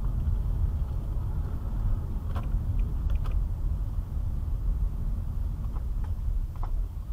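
Car driving, heard from inside the cabin: a steady low rumble of engine and tyres on the road, with a few faint light clicks or knocks in the middle and near the end.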